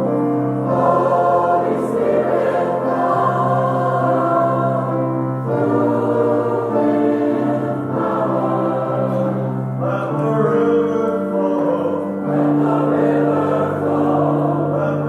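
Church liturgical choir singing, with held notes that change every second or two over a steady low part.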